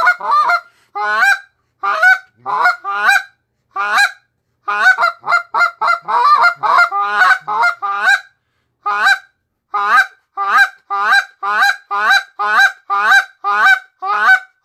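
Canada goose call blown by hand in a long run of buzz clucks: short, buzzy, high-pitched clucks made with air pressure and no voice, the cupped hand opened to let the sound out. Some clucks come singly and some in quick doubles and triples, with brief pauses about a second in and about eight seconds in.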